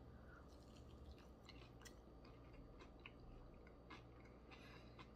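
Faint chewing of a breaded, sauced cauliflower wing, with soft irregular crunches.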